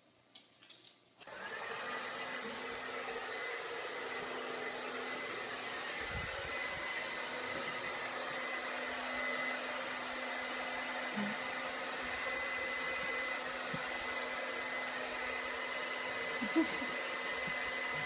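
Handheld hair dryer blowing steadily, starting about a second in, with a brief louder blip near the end.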